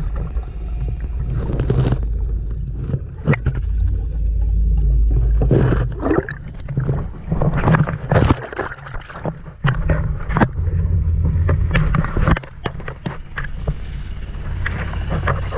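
Water sloshing and gurgling around a camera held at the surface, over a steady low rumble. About six seconds in come splashes and a run of sharp knocks against a small fibreglass boat as a diver climbs aboard.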